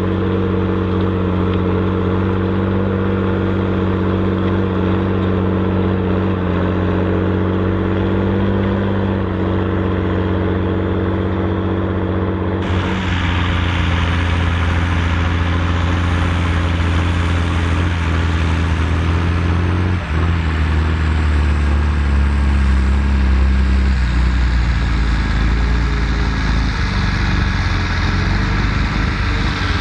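Volvo BM 2654 tractor's diesel engine pulling steadily under load while ploughing. About 13 seconds in the sound changes abruptly to a deeper engine note with more hiss on top, with a brief dip around 20 seconds.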